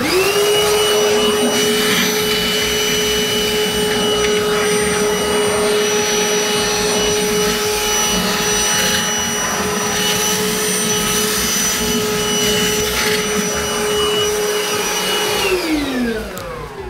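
Milwaukee wet/dry vacuum switching on and running with a steady whine and rushing air, sucking the leftover water out of a toilet tank. Its motor switches off and winds down, falling in pitch, about a second before the end.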